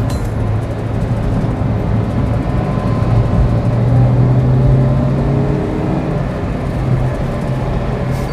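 Toyota Avanza being driven: steady engine and road noise, with the engine note rising from about three seconds in and easing off again about six seconds in.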